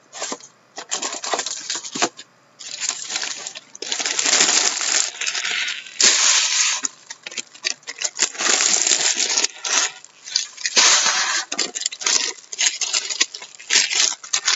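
Clear plastic shrink wrap being torn and crumpled off a sealed box of hockey cards: loud, irregular crinkling and crackling with short pauses, heaviest about four and six seconds in and again around eleven seconds.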